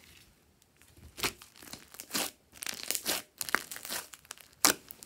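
Hands squeezing and stretching a thick glossy slime mixed with small beads, giving irregular crackling, squelching and tearing sounds after a quiet first second, with a sharp louder pop a little before the end.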